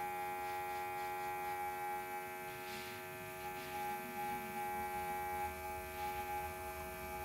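The built-in compressor of a Worx WX742 Maker X 20V airbrush running with a steady electric hum while paint is sprayed. Faint short hisses of air come from the nozzle about three seconds in.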